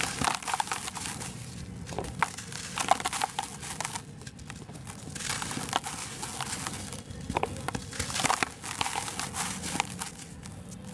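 Dry sand-and-cement lumps crunched and crumbled between fingers, with gritty crackling and the hiss of powder pouring back into a bed of dry cement dust. The crumbling comes in bursts with short pauses.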